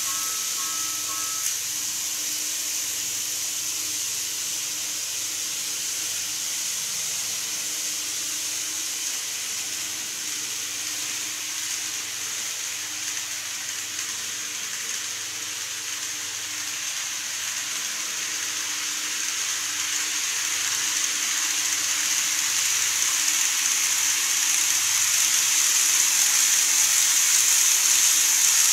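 N-scale model electric train running on plastic viaduct track, a steady high-pitched whir from its motor and wheels that grows louder over the last several seconds as the train approaches.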